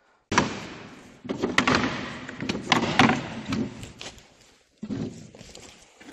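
Irregular close knocks and thuds with scraping and rustle between them, several sharp hits bunched together, breaking off for a moment before a last cluster near the end.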